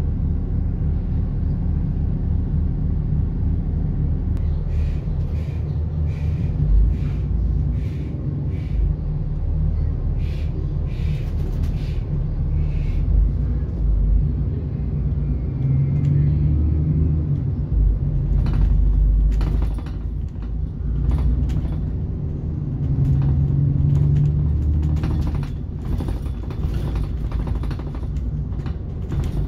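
Alexander Dennis Enviro 400 Trident double-decker bus with a Voith automatic gearbox, heard from the upper deck while driving: a steady engine and road rumble that swells and eases several times as the bus pulls away and slows. Short clicks and rattles from the bodywork and fittings run through much of it.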